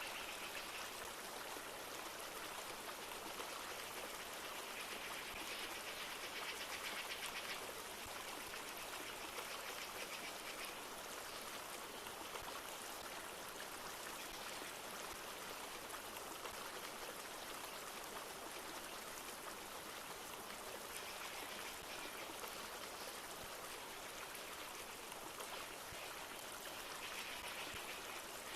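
A flowing river rushing steadily, with a higher hiss swelling for a second or two several times.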